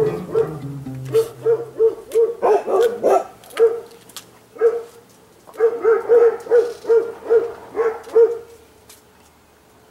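Dogs barking repeatedly, two to three barks a second, in two runs with a short pause in the middle; the barking stops near the end.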